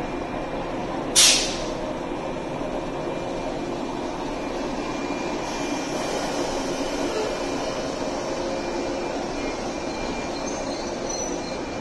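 Orange commuter electric train running at a station platform, a steady rumble and hum of motors and wheels on rails. A short, sharp hiss stands out about a second in.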